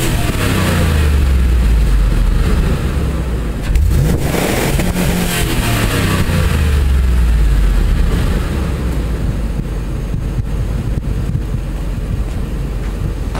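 2002 Ford Expedition's 5.4-litre V8 on its stock exhaust, its revs falling away after a blip. It is revved sharply again about four seconds in, winds down slowly, and then settles into a steady idle.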